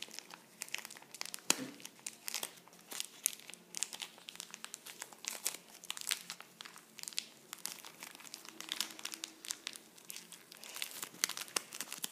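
Plastic toy packaging crinkling and crackling as it is worked open by hand, in a steady run of irregular crackles, with a little tearing.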